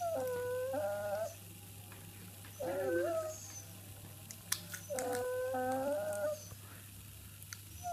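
Pet dog making strange, drawn-out whining noises: three calls, the last the longest, each bending up and down in pitch.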